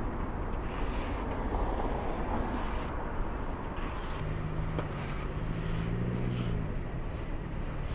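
Street traffic at an intersection: a steady rumble of vehicles, with a low engine-like hum coming in about four seconds in and fading out near seven seconds.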